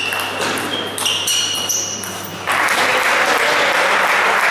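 Table tennis rally: the ping-pong ball clicking off bats and table a few times, then spectators applauding, starting suddenly about halfway through as the point ends.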